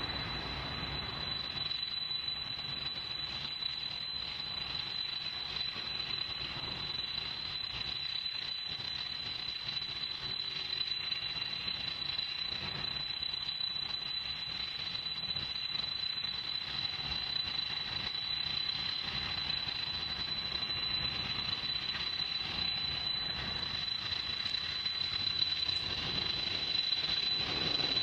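Boeing 747-400 freighter's jet engines: a steady high-pitched whine over a broad rushing noise, slowly growing louder near the end.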